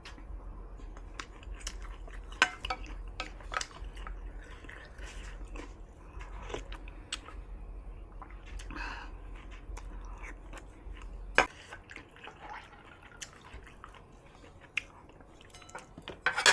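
Close-up chewing with wet mouth clicks and smacks, and scattered sharp clicks, two of them louder, about two and a half and eleven seconds in. A low steady hum underneath cuts off near the end.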